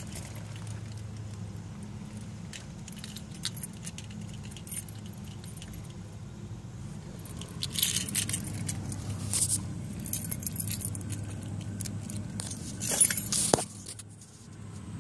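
Car keys jangling in several bursts while the car door is opened and someone gets out, over a steady low hum. A sharp knock near the end, after which the hum stops.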